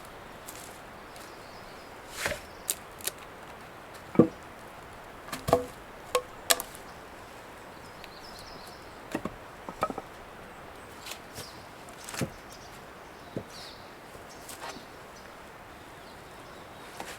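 Irregular wooden knocks and clunks, about a dozen spread unevenly, some with a short ring, the loudest about four seconds in: lumber being handled and knocked together.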